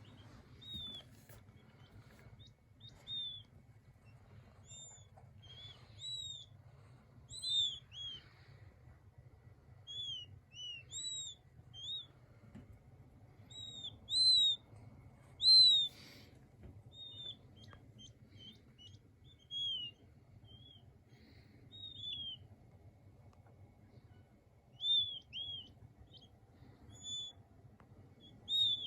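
King quail chicks peeping: short, high, arched chirps at irregular intervals, a couple of louder ones about halfway through.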